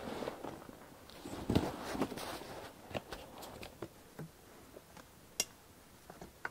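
Rustling and light clicking of a goat's pack saddle and panniers being loaded and gear strapped on top, with one sharp click about five and a half seconds in.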